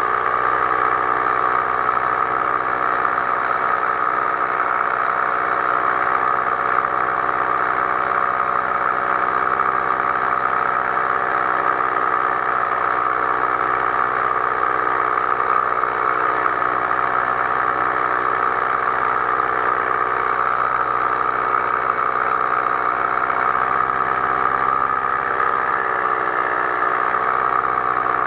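Powered paraglider's engine and propeller running steadily in flight, an even drone with a slight wobble in pitch near the end.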